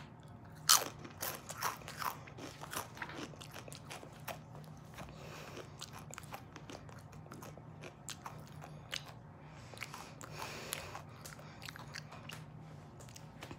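Crunching bites into a Takis rolled corn tortilla chip dipped in Reaper pepper puree, then chewing. The loudest crunch comes about a second in, followed by a quick run of smaller crunches, and the chewing goes on more quietly after that.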